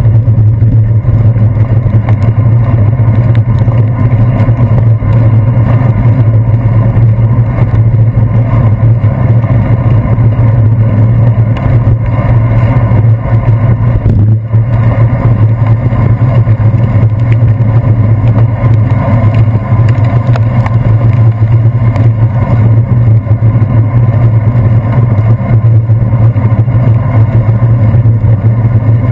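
Steady, loud rumble of wind and road vibration picked up by a handlebar-mounted GoPro Hero 2 in its housing while a bicycle rides over wet pavement in the rain.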